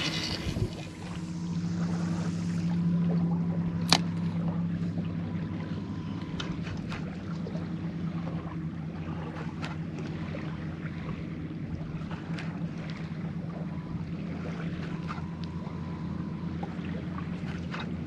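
A boat's motor runs with a steady low hum, swelling about a second in and then holding level. A single sharp click comes about four seconds in.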